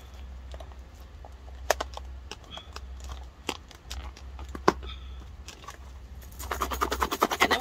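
Clear plastic salad container's lid being pressed and snapped shut: scattered crackling clicks of the thin plastic. About six seconds in, a fast, dense rattling starts as the closed container is shaken to toss the salad with its dressing.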